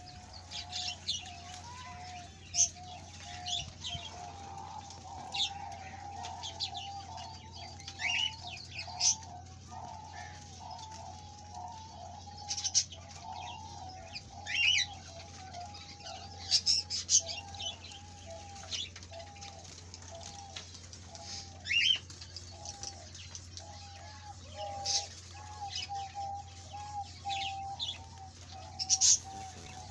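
Small cage birds chirping, short sharp calls every few seconds, over a continuous run of soft warbling notes and a faint steady hum.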